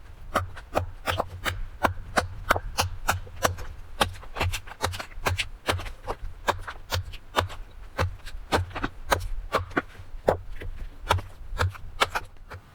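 Quick, sharp strikes of a cutting tool into wood, about three a second and somewhat irregular, each with a dull thud. This is the sound of carving out a wooden kuksa cup. The strikes stop just before the end.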